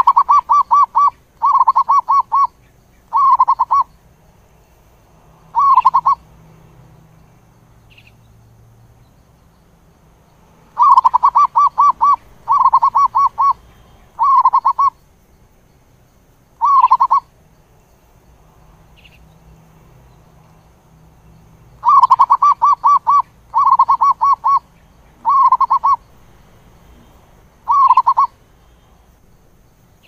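Zebra dove calling: bouts of rapid, stuttering cooing notes, each bout made of about four short phrases, the first the longest. The bouts repeat three times, about eleven seconds apart.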